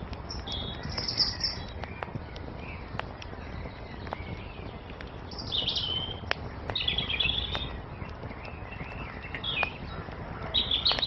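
Wood fire crackling with scattered sharp pops, with songbirds singing short chirping phrases every second or two over it.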